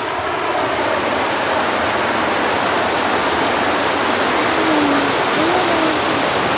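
Water pouring over a low stepped weir: a steady, loud rushing of falling water that grows a little louder in the first second.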